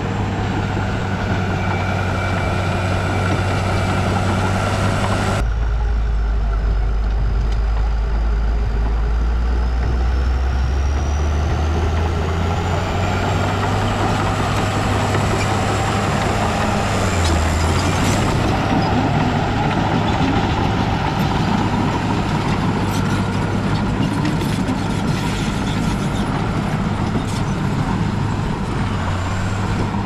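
Heavy diesel earthmoving machinery running with a steady engine note. About five seconds in the sound changes abruptly to a deeper, heavier engine note that rises and falls in pitch as the engine works.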